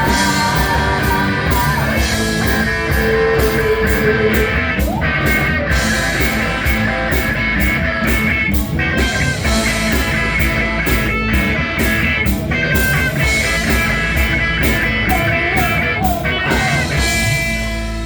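Rock band playing live, electric guitar over a steady drum beat. Near the end the beat stops and a chord is left ringing as the song finishes.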